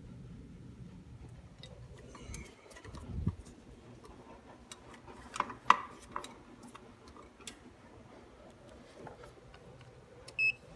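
Low steady electrical hum from a mercury vapour ballast driving sodium lamps, fading after about two seconds. Scattered clicks and knocks follow, the loudest around the middle, and a single short electronic beep comes near the end.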